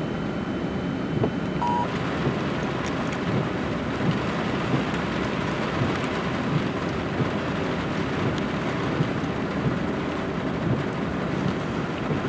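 Heavy rain falling steadily, with wind buffeting the microphone.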